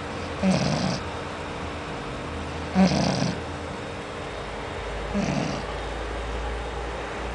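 A sleeping pet snoring: three snores about two and a half seconds apart, each a short low rasp with a breathy hiss on top.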